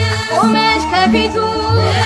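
Ethiopian folk-style New Year music: a steady, repeating bass line under a bending melodic line, likely a voice.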